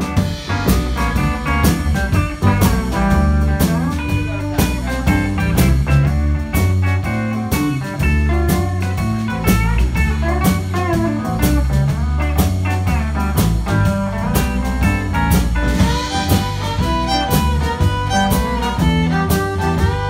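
Live country band playing an instrumental break in a two-step song: electric guitar and fiddle over bass, keyboard and a drum kit keeping a steady beat.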